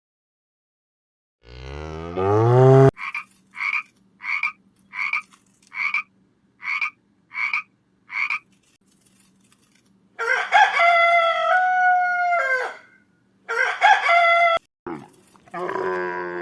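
A run of separate farm-animal calls. First a short low call, then eight short evenly spaced croaking calls about two-thirds of a second apart. After a pause a rooster crows, one long call stepping down in pitch, followed by a shorter call.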